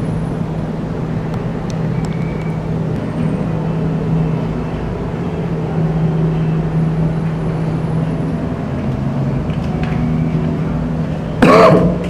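A steady low mechanical hum over a noisy background, with a short loud burst near the end.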